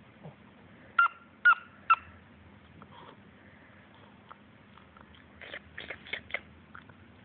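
Small long-haired dog giving three sharp, high-pitched yips about half a second apart, then a quicker run of softer yips near the end.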